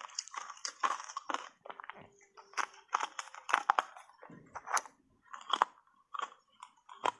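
Hard ice bars coated in matcha powder being bitten and chewed, a run of irregular crisp crunches with short lulls between them.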